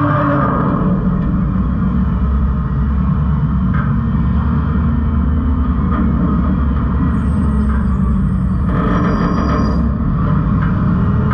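New Way Rotopac garbage truck's screw-auger packer turning under hydraulic drive as it packs trash into a heavily loaded body, with the truck's engine held at working speed: a steady low rumble. A few faint clicks, and a short higher whine about nine seconds in.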